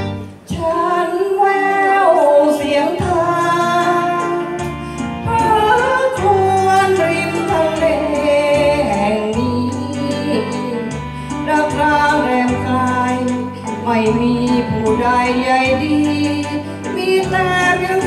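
A woman singing a Thai song into a handheld microphone, amplified over a keyboard backing track played through speakers.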